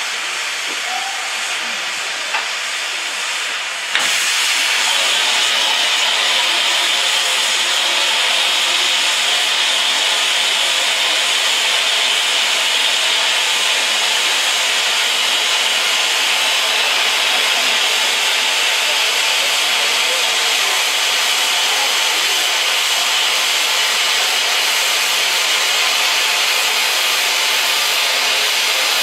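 A stationary BR Standard Class 9F steam locomotive hissing steam steadily. About four seconds in, the hiss suddenly gets louder and stays loud.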